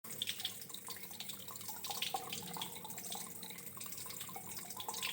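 Water trickling and dripping steadily, with many small splashes, as a relaxing background sound.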